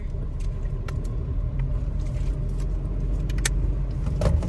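Suzuki S-Presso's small three-cylinder engine and road rumble heard from inside the cabin, building steadily as the car pulls away from a stop. A few light clicks and rattles sound over it.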